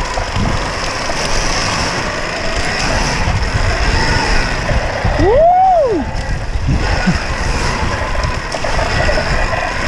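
KTM Freeride E-XC electric dirt bike being ridden on a dirt motocross track, heard from a helmet camera: steady wind and rolling noise with no combustion engine. About five seconds in comes a short whoop that rises and falls in pitch.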